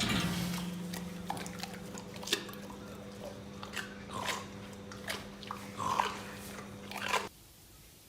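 An animal chewing and crunching close to the microphone, with irregular crunches over a steady low hum; the sound cuts off suddenly about seven seconds in.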